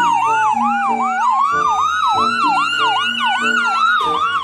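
Electronic ambulance siren: a fast yelp sweeping up about three times a second over a slower wailing tone that falls, rises and falls again, with low tones changing in steps underneath.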